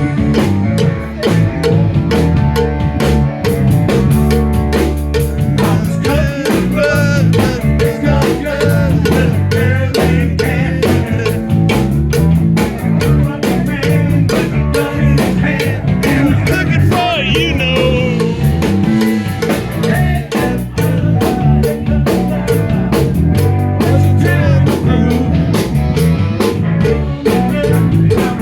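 Rock music with a drum kit and guitar, playing at a steady beat.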